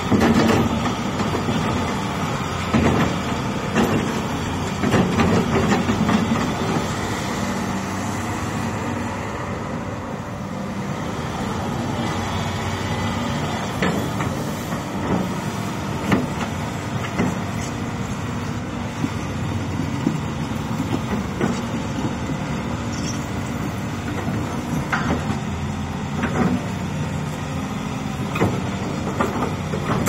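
Doosan DH215-9E crawler excavator's diesel engine running steadily while the boom, arm and bucket are worked, with a clunk now and then.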